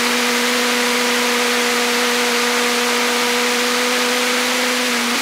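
Liquid rocket engine firing steadily on a test stand: a loud, even rush of exhaust with a steady low tone and its overtone running through it.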